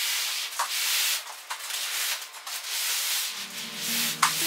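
Plastic wrapping on a delivered sofa rustling and crinkling as it is handled, in uneven surges. Soft background music comes in about three seconds in.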